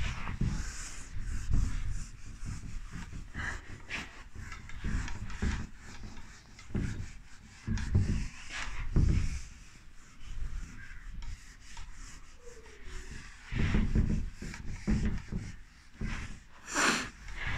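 Handwriting strokes scratching and rubbing on a writing surface, in irregular short runs with pauses, with low bumps from the hand and writing surface being handled.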